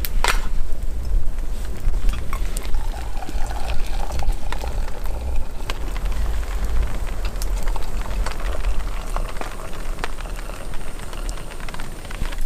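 Rain pattering steadily, with scattered sharp crackles from a wood campfire and a low rumble underneath.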